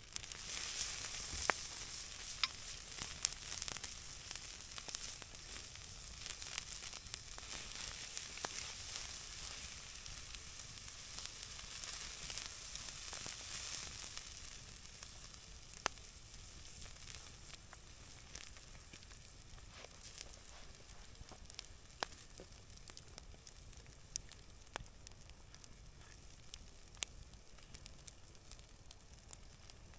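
Marinated meat sizzling on a wire grill grate over campfire coals. The sizzle starts as the meat goes onto the hot grate, is strongest over the first half and then eases, with scattered sharp pops throughout.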